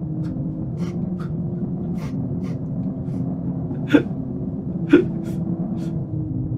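Short gasping breaths over a steady low drone, with two louder gasps about four and five seconds in that drop in pitch.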